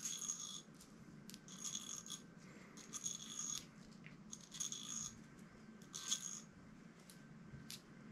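Small metal inline-skate wheel spacers clinking as they are put one after another onto a metal rod in a plastic storage container: five short, faint metallic rattles about a second apart.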